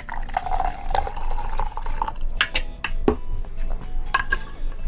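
Milk poured from an aluminium pot into a plastic cup, with a spoon scraping it along: a pouring trickle for about two seconds, then a few sharp clicks and knocks.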